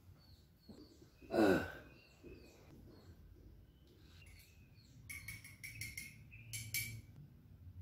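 A metal spoon clinking repeatedly against a glass mug of tea, a quick run of ringing clinks about five to seven seconds in. About a second and a half in there is a single short, louder sound falling in pitch, and faint bird chirps sound in the background.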